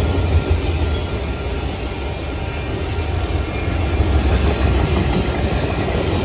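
Freight train boxcars rolling past, their steel wheels rumbling steadily on the rails, growing a little louder about two thirds of the way through.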